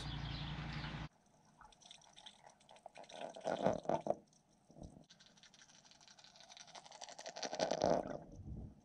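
Muffled water sloshing and gurgling picked up by a camera under water, swelling in two surges a few seconds apart. A low steady background hum cuts off about a second in.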